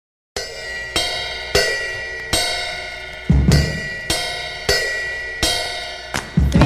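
Intro music: a run of cymbal crashes, each ringing out before the next, with heavy bass drum hits about halfway through and near the end.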